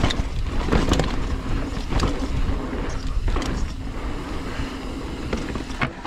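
Mountain bike rolling down a rough dirt trail: a steady rumble of tyres and frame, broken by sharp knocks and rattles about once a second as it hits rocks and roots.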